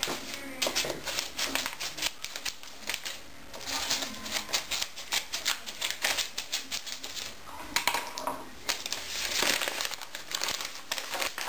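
Scissors snipping through a padded mailer envelope, with crinkling and rustling of the envelope as it is handled: a run of quick sharp snips and crackles, with longer crinkling stretches near the middle and near the end.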